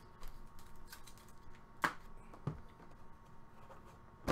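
Light handling clicks as an aluminium carry case's metal latches are flipped open and its lid lifted, with two sharper clicks just under two seconds in and about half a second later.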